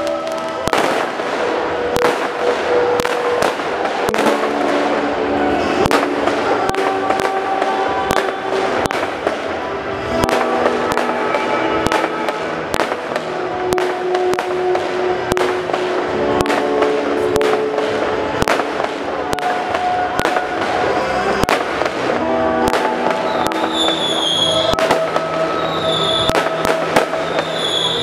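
Aerial fireworks going off, many sharp bangs and crackles in quick succession, with music with held notes playing throughout.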